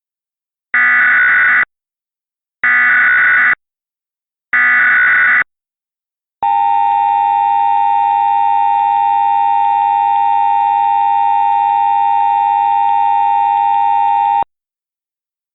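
Emergency Alert System SAME header, three short bursts of buzzy digital data tones about a second apart, followed by the EAS two-tone attention signal. The attention signal holds steady for about eight seconds and then cuts off sharply.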